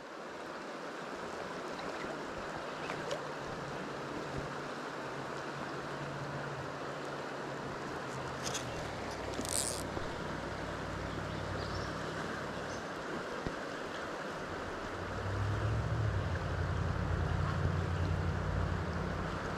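Steady rush of river current, with a low rumble that grows louder about three-quarters of the way through and a few faint clicks.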